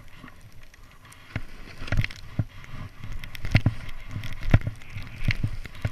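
Skis sliding through deep powder snow, with irregular thumps and knocks as they hit bumps and drops. A low rumble of wind and motion runs underneath on the camera microphone.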